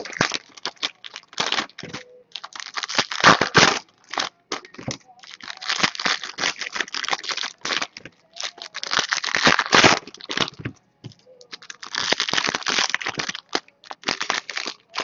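Foil trading-card pack wrappers crinkling and tearing as packs are ripped open by hand. The crackling comes in irregular bunches with short pauses between them.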